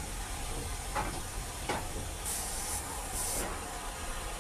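Steam locomotive letting off steam in two short, sharp hisses about two and three seconds in, over a steady low rumble, with a couple of faint knocks before them.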